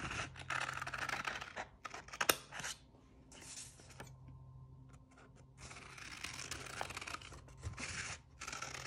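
Steel scissors snipping through a sheet of paper along a curved line, in short runs of cuts with a pause of a second or two about four seconds in.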